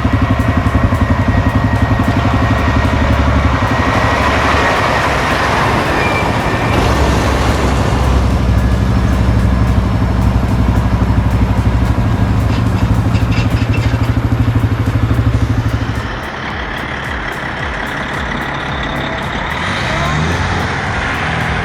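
Heavy diesel engine running steadily under load with an even low pulsing. It eases off and quietens about sixteen seconds in.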